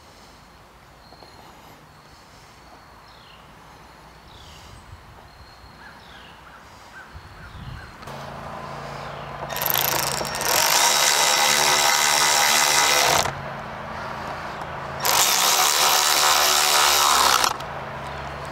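Cordless power driver with a long extension running bolts down to secure a new convertible top's front edge to the windshield header. It whirs in two runs of about three seconds each, in the second half.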